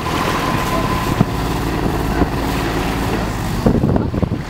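Inboard engine of a small motorboat running steadily on its test run after launch.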